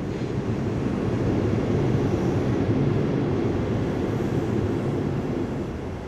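Train crossing a railway viaduct: a steady low noise that swells to its loudest about two to three seconds in, then fades as it passes.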